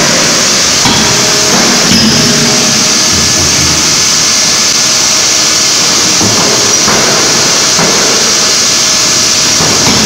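A double-acting CNC hydraulic die forging hammer striking hot metal, with several heavy blows at irregular spacing over a constant loud hiss and shop noise.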